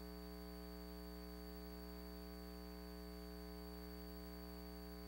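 Faint, steady electrical hum with a thin high whine and a light hiss, unchanging throughout.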